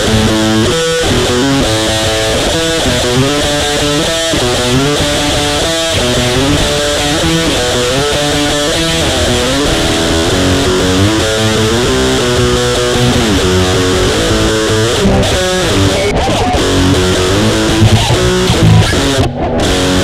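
Electric guitar playing a melodic line of held notes with slides between some of them, over a steady low bass part, with a brief dip in the sound shortly before the end.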